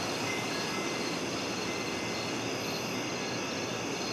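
Steady background ambience: an even hiss with faint, high, steady tones running through it.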